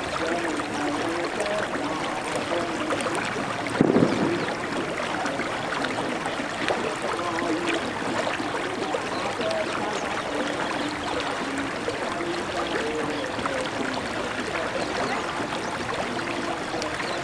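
Steady rush of flowing river water, with faint short voice-like tones over it and a single louder knock about four seconds in.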